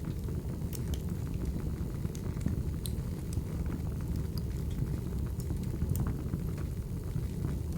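Wood fire crackling: a steady low rumble of burning logs with scattered, irregular sharp pops and snaps.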